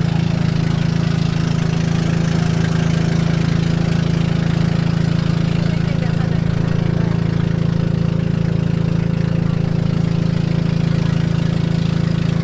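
Engine of a small river motorboat running steadily while under way, a constant low drone that does not change in speed or loudness.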